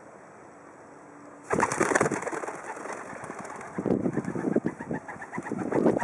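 White dove cooing close to the microphone. The sound starts suddenly and loud about a second and a half in and comes again more strongly near the end.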